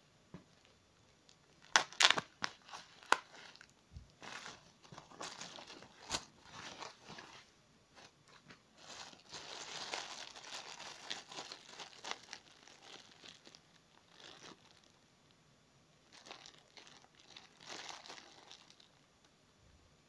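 Foam packing wrap and a clear plastic bag rustling and crinkling as they are torn open and handled, with a few sharp cracks about two seconds in.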